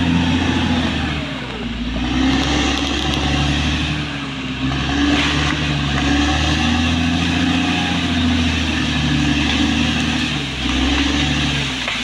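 Caterpillar D6R XL bulldozer's diesel engine working hard, its pitch sagging and picking up again several times as the blade pushes against a large tree.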